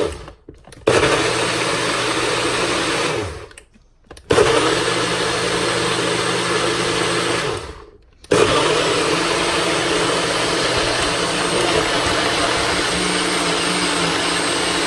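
NutriBullet personal blender blending a thick protein shake in three pressed-down runs, each a steady motor whir with a stop of about a second between them. The third run is the longest and is still going at the end.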